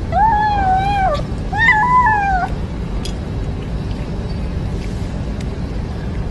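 Kitten meowing twice, two drawn-out wavering calls of about a second each close together in the first few seconds, over a steady low background rumble.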